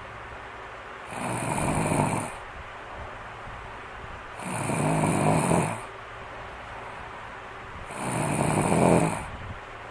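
Snoring in sleep: three long, low snores about three and a half seconds apart, each lasting over a second, with quieter breathing between them.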